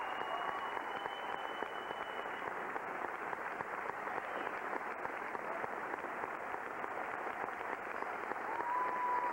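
Theatre audience applauding steadily, with a long high whoop at the start and another near the end.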